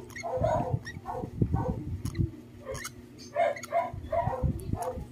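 African lovebird chick giving short, raspy begging calls in quick irregular runs while it takes formula from a feeding syringe, with soft low thumps underneath.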